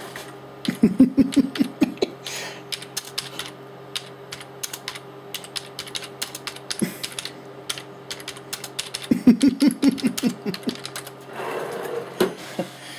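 Typing on a computer keyboard: quick runs of key clicks about a second in and again near the end, with scattered single clicks between, over a steady low electrical hum.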